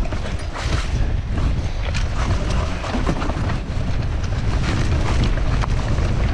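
Hardtail mountain bike descending a rooty dirt trail, heard from a handlebar camera: a steady low rumble of wind buffeting the microphone and tyres on the ground, with frequent small clicks and rattles from the bike over bumps.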